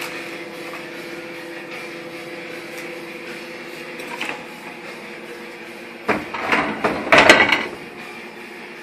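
Microwave oven running with a steady hum that dies away about five seconds in, followed about six seconds in by a burst of clattering knocks and clunks, the loudest about seven seconds in.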